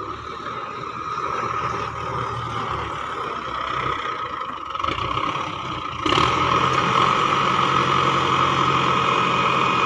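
Belarus tractor's diesel engine running steadily while it works a front-end loader, growing suddenly louder about six seconds in.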